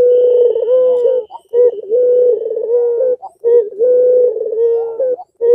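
Puter pelung collared dove cooing: long drawn-out coos held at one steady pitch, in three phrases with short breaks between them, each wavering at its end.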